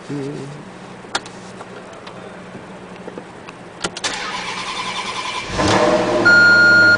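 Maserati GranTurismo V8 cold start: a few clicks, then the starter cranks for about a second and a half before the engine catches with a rising flare of revs. A loud steady high beep sounds alongside it near the end.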